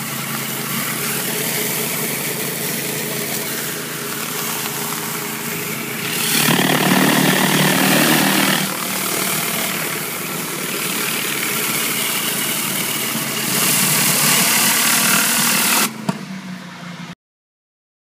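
Pressure washer's engine running steadily while a rotary flat surface cleaner sprays water onto concrete, a dense hiss over the engine hum. The spray grows louder about six seconds in and again near the end, then the sound drops and cuts off to silence.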